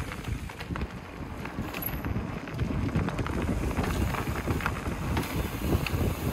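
Wind buffeting a moving camera's microphone as a low, uneven rumble, with mountain-bike tyres rolling over a dirt and gravel trail and scattered small clicks and crunches.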